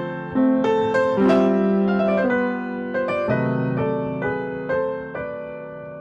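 Piano playing a slow passage of chords, each change of chord struck and left ringing.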